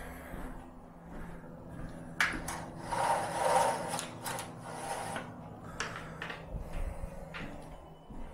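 A window shade being drawn: a sharp start about two seconds in, then a couple of seconds of scraping and rubbing, followed by a few fainter knocks.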